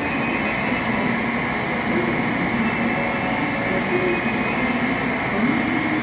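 Shinkansen platform departure signal: a steady high-pitched electronic ringing that starts suddenly and cuts off after about six seconds, sounding while the N700-series train stands ready to leave.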